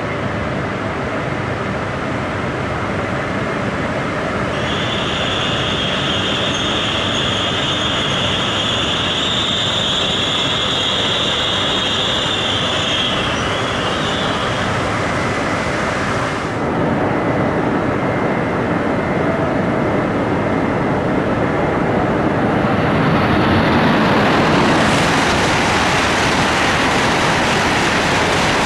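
ALFA-X E956 test Shinkansen running slowly through the station, with a steady high-pitched squeal for about ten seconds. After a sudden change, an E5-series Shinkansen comes through at speed and grows loud near the end.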